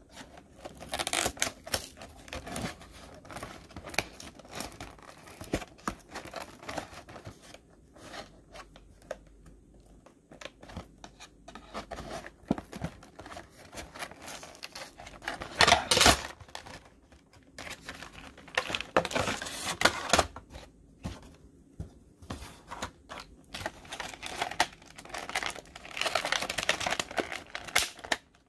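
Plastic blister and cardboard backing of a carded action figure being pried, torn open and crinkled by hand, in irregular crackling bursts with small clicks; the loudest tear comes about halfway through.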